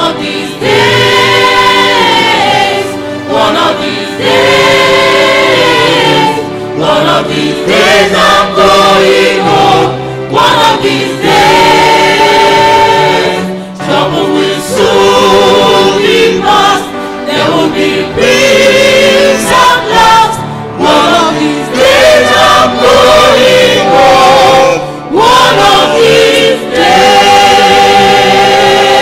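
Church choir of men and women singing a gospel song together in phrases, the voices carried through microphones.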